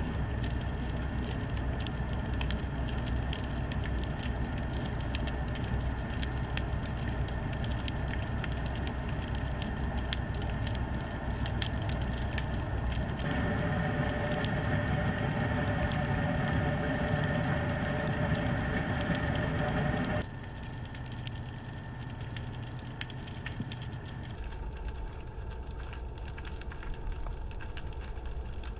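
Underwater sound picked up by a GoPro in its housing on the seabed: a constant dense crackle of tiny clicks over a low rumble. A steady droning tone joins about halfway through and cuts off suddenly a few seconds later.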